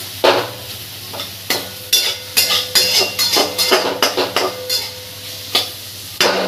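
Flat metal spatula scraping and stirring sliced onions around a metal kadhai, with irregular scrapes several times a second over the sizzle of the onions frying in hot mustard oil.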